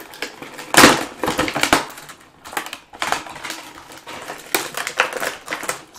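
Clear plastic packaging tray crinkling and crackling as it is twisted and pulled apart by hand, in irregular bursts that are loudest about a second in.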